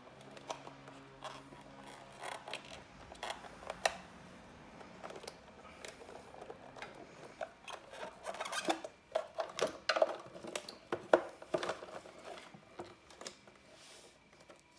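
A 12-volt sealed lead-acid battery being worked loose and pulled out of an electric scooter's battery compartment: plastic casing scraping and rubbing against the tray, with scattered clicks and knocks. The handling is busiest and loudest in the second half, as the battery comes free.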